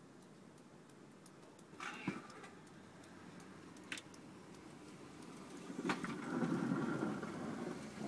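Pickup truck engine rumbling as the truck approaches, getting louder from about six seconds in, with a few faint clicks before it.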